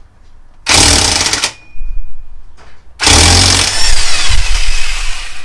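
Impact gun hammering on the 14 mm hex bolt at the bottom of a motorcycle fork leg, in two bursts: a short one about a second in and a longer one from about three seconds. The bolt, which holds the fork's damper piston, breaks loose.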